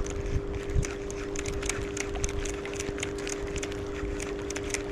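Wind rumbling on the microphone over a steady two-tone hum, with scattered light ticks throughout.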